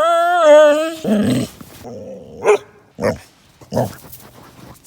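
Yellow Labrador retriever vocalizing. It gives one long, wavering, moan-like whine of about a second, then a lower grunt and a few short grunts and huffs.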